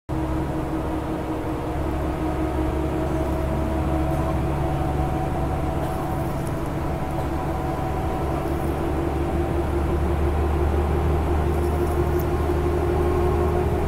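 Steady drone of a moving road vehicle heard from inside its cabin: engine and tyre rumble with a few humming tones that drift slowly upward.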